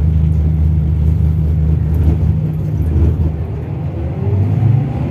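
Scania DC12 straight-six diesel of a Scania K380IB coach idling with a deep, steady note, which shifts slightly a little past halfway.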